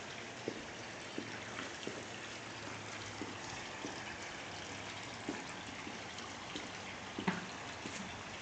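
Light footsteps on concrete, about one every two-thirds of a second, over a faint steady hiss; one step near the end is sharper than the rest.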